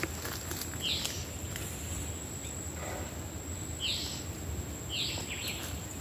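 Bird calling in the treetops: three short, high calls, about a second in, then twice close together near the end. A steady high insect buzz runs underneath.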